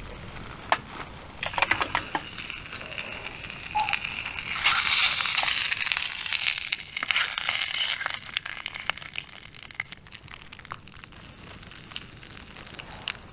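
Pierogies frying in olive oil in a small pan over a twig stove, with a metal utensil clinking and scraping against the pan. A loud sizzle swells about four and a half seconds in and lasts a couple of seconds. Through it a wood campfire crackles and pops.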